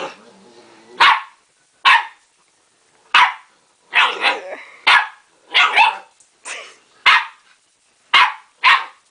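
Dog barking repeatedly at its own reflection in a mirror, which it takes for another dog: about ten short, sharp barks at uneven intervals, some in quick pairs.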